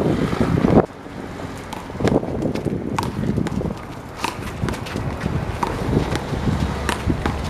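Wind buffeting the microphone, which drops away about a second in, then a handball rally: irregular sharp slaps as the rubber ball is struck by hand and hits the wall, with players' running footsteps.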